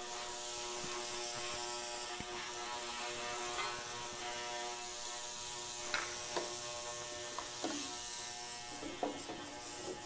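Ultrasonic cleaner running: a steady buzzing hiss from its tank of warm water with a little dish soap, with a plastic remote-control part held in the bath. A few faint knocks come in the second half.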